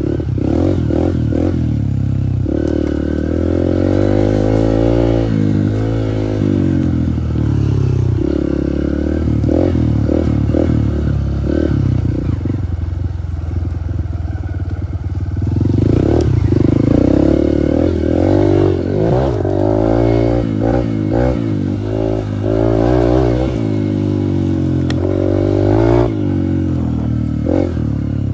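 Dirt bike engine running under load on a trail ride, its revs rising and falling over and over with the throttle. It eases off for a few seconds about halfway through, then picks up again. Short knocks and rattles come through the whole time.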